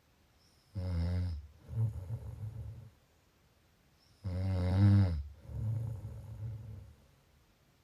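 A sleeping person snoring through two breaths, about three and a half seconds apart. Each breath is a short, loud, pitched snore followed by a longer, lower, rougher snore; the second breath is the louder.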